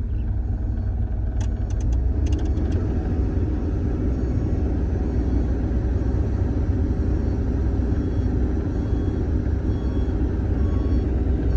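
Doosan DX420LCA excavator's diesel engine and hydraulics running under load, heard from inside the cab as a steady low rumble. A few sharp clicks sound between one and three seconds in.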